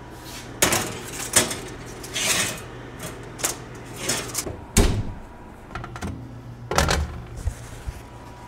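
Baking trays and an oven door being handled: a string of clatters and knocks, the heaviest a dull thump about five seconds in, over a low steady hum.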